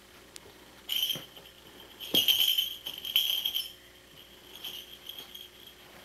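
Small bells jingling in shakes: a short shake about a second in, a longer, louder one from about two to three and a half seconds in, then a few fainter jingles.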